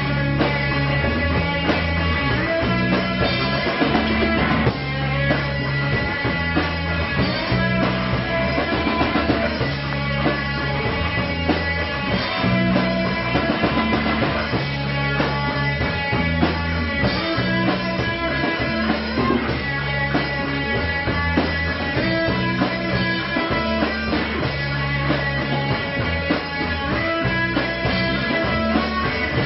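A rock band playing live: guitar, bass guitar and drum kit, with the bass changing notes about every second under steady drumming.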